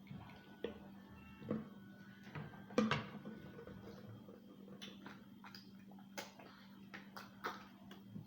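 Irregular light clicks and knocks of dishes and utensils being handled while eating, the loudest about three seconds in, over a steady low hum.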